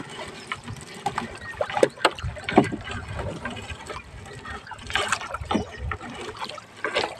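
A fishing net being hauled hand over hand out of the sea over the side of an outrigger boat: wet net rustling and water splashing and dripping, with scattered knocks against the boat.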